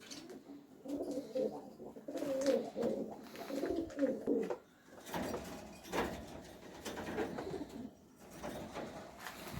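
Domestic pigeons cooing, low wavering calls repeated over several seconds, with a few sharp clicks in the middle.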